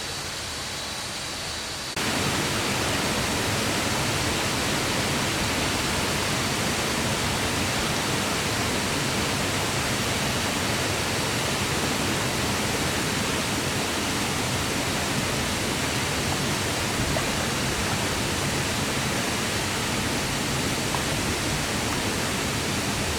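Waterfall, a steady rushing roar of falling water. It cuts in abruptly and louder about two seconds in, after a quieter stretch of softer water noise.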